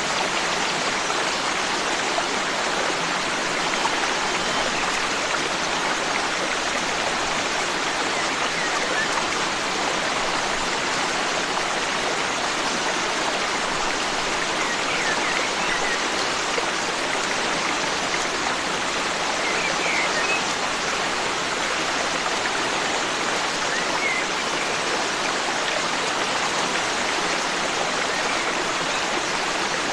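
Forest stream rushing steadily over rocks, with a few faint, brief bird chirps about halfway through and again later.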